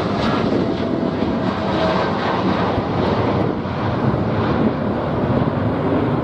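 Boeing 787-9 Dreamliner's GEnx-1B turbofans climbing out after takeoff as the jet passes overhead and moves away: a steady, loud jet noise with a deep rumble underneath.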